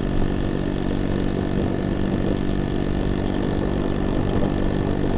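The 49 cc four-stroke single of a 2003 Honda Metropolitan scooter is running steadily at part throttle, with the scooter underway and gaining speed from about 18 to 20 mph. The engine runs cleanly below three-quarter throttle, before any wide-open stumble.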